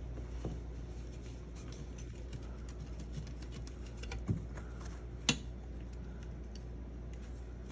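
Light clicks and taps from hands handling small wiring parts and terminals, with two sharper clicks about four and five seconds in, over a steady low hum.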